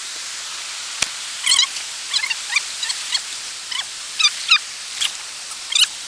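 Steady hiss of a rocky stream's water cascading over boulders, with about a dozen short, squeaky chirps from a bird at irregular intervals, and a single sharp click about a second in.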